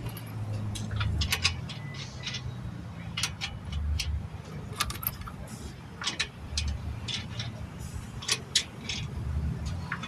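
Irregular metallic clinks and clicks as a wheel is refitted to the car and its lug nuts are handled and threaded on, over a low steady hum.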